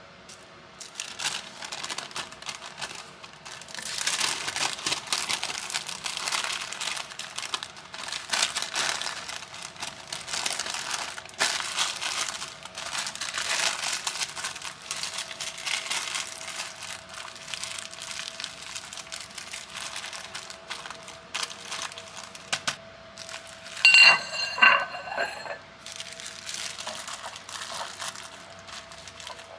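Clear plastic cling film crinkling and rustling as a sandwich is wrapped tightly by hand. Near the end comes a brief, louder squeaky pitched sound.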